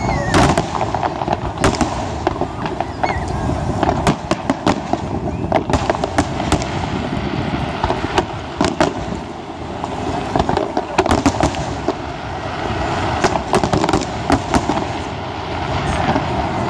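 Fireworks display: aerial shells bursting in quick, irregular succession, many sharp bangs over a continuous rumbling background.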